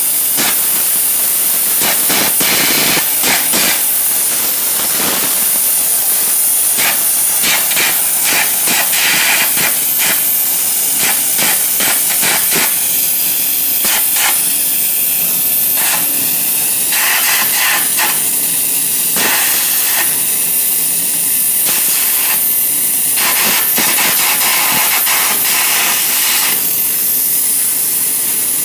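Air carbon arc gouging steel: a loud, steady hiss of compressed air blowing through the carbon electrode torch, with the arc crackling and popping irregularly as the molten metal is blown out of the gouge.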